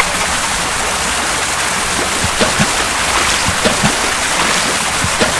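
Water sound effect: a steady rush of water, like a stream or surf, with scattered short gurgles from about two seconds in.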